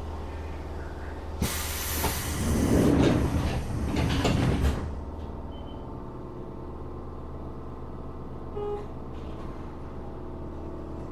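Interior running sound of a Tokyo Metro 7000 series armature-chopper electric train at speed, with a steady low hum. About a second and a half in, a loud rushing noise rises and lasts about three seconds before dropping back to the steady running sound.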